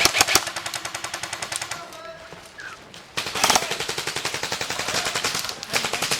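Airsoft rifles firing on full auto: a rapid, even rattle of shots in a long string that breaks off about two seconds in and starts again about a second later.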